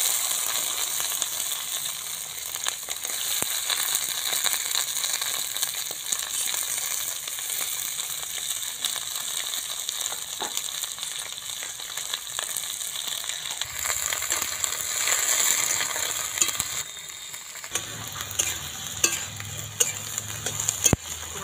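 Quartered ivy gourd (kundri) pieces sizzling in hot oil in a metal wok. The hiss starts suddenly as the pieces go in. Near the end a metal spatula clicks and scrapes against the pan as they are stirred.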